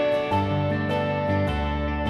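Background music: gentle plucked acoustic guitar with sustained notes changing every half second or so.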